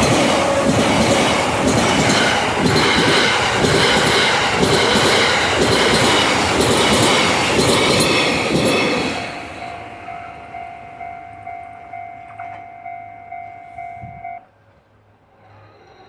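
Train Suite Shiki-shima passing loudly over a level crossing, its wheels knocking in a regular rhythm. The crossing's warning bell rings under it. Once the train is gone, the bell goes on at about two strikes a second and stops suddenly about 14 seconds in.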